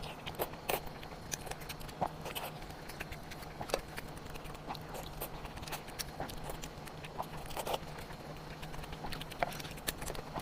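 Close-miked mouth sounds of someone eating pork: irregular short wet smacks and clicks of chewing, over a low steady hum.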